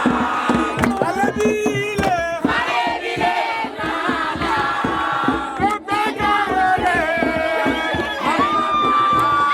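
Group of voices singing and chanting together over a fast, steady percussive beat, with one long held note near the end.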